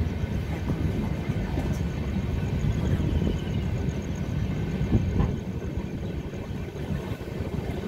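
Passenger train running, heard from inside the carriage: a steady low rumble of wheels on the rails, with a single louder knock about five seconds in.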